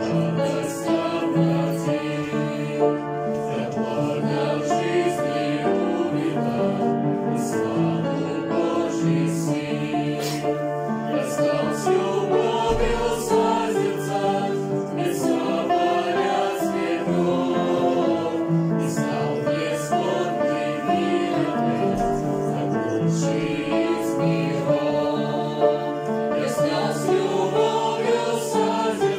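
Mixed choir of young men and women singing a hymn in harmony, accompanied by piano.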